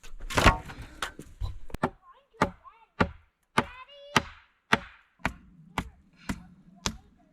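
Wood being chopped with a steady series of sharp strokes, about two a second, the first few the loudest.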